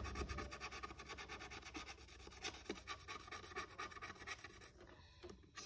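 Scratch-off sticker being scratched away with rapid, regular rubbing strokes, faint and scratchy.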